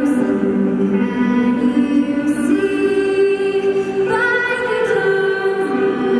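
A national anthem being sung, slow and in long held notes.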